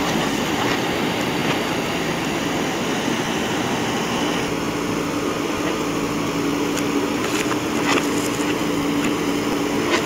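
JCB 3DX backhoe loader's diesel engine running steadily under load while the backhoe arm digs, a steady tone joining about four seconds in. A few sharp knocks come in the second half.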